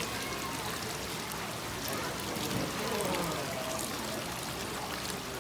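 Steady running and pouring water at a children's water-play table, with faint voices in the background.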